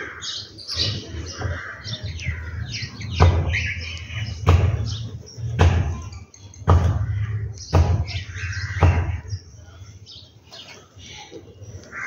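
Small birds chirping and calling. A run of six dull thumps, about a second apart, sounds through the middle and is louder than the birdsong.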